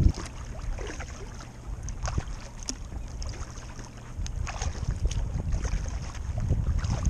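Water lapping and splashing around an inflatable Intex Challenger K1 kayak as it is paddled, with scattered small splashes and a steady low wind rumble on the microphone.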